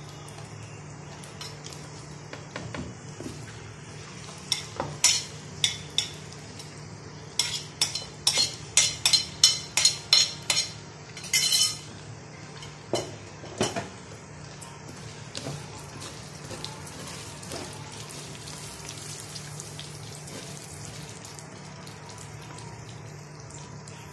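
Diced carrots sizzling in hot oil in a wok, stirred with a spatula that scrapes and knocks against the pan in a quick run of sharp clacks during the first half, then steady sizzling with only occasional scrapes.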